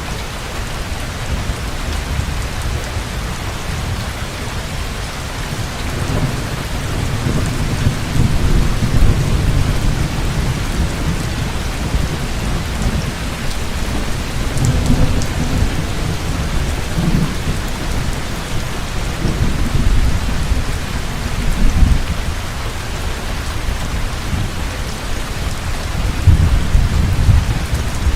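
Heavy rain falling steadily, with thunder rumbling low underneath in swells through most of the stretch, the strongest near the end.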